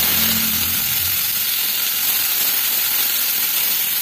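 Fresh leafy greens (pani saag) just tipped into a kadhai of hot oil and garlic, sizzling with a loud, steady hiss.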